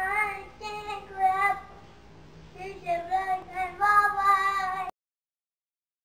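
A young child singing a few drawn-out notes, which cut off suddenly about five seconds in, followed by dead silence.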